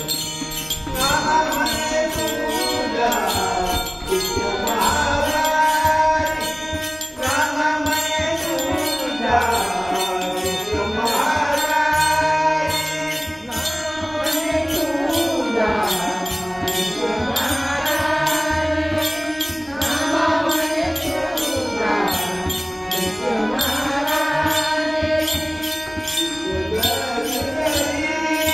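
An elderly man singing a Marathi abhang in long, sliding devotional phrases, with small hand cymbals keeping a steady beat.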